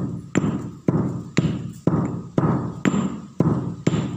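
Stone pestle pounding grains in a heavy stone mortar: a steady run of hard knocks, about two a second, each with a short ring.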